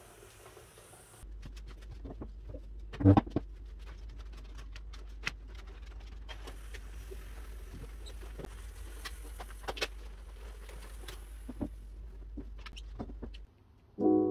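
Canister steam cleaner running as it is pushed over a tiled floor: a steady low hum that starts about a second in, with scattered clicks and taps of the wand head on the tiles and one louder knock about three seconds in. The hum cuts off just before the end.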